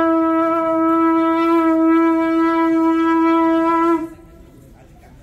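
Conch shell (shankha) blown in one long, steady blast of about four seconds at a single pitch, which then stops abruptly, sounded for a temple door-opening ritual.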